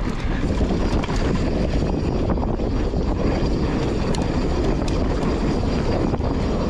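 Wind rushing over an action camera's microphone as a mountain bike descends dry dirt singletrack, with the tyres rolling on the dirt. A few faint clicks and rattles from the bike come through.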